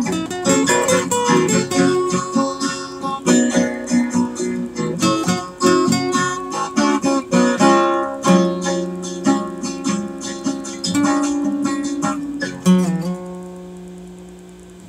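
Acoustic guitar played solo, picked notes mixed with strummed chords, ending on a last chord a little before 13 seconds in that rings out and fades away.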